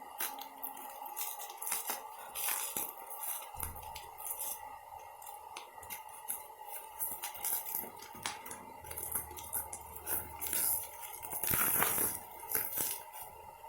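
Scattered clicks, taps and crinkles of hands handling packaging and kitchen items, with the busiest stretch a little before the end.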